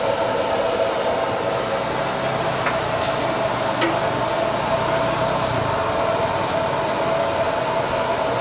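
Steady machine whir of a noodle-stall kitchen, with a few light clinks of bowls and utensils.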